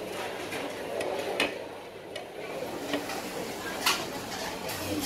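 Street-stall kitchen clatter: scattered clinks and knocks of metal utensils and dishes over steady background noise, with a sharp clank about four seconds in.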